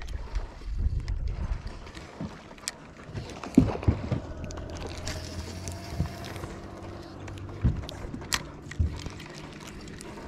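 A spinning rod and reel handled in a small boat: several sharp knocks and clicks, and a brief hiss about halfway through, over a steady low hum.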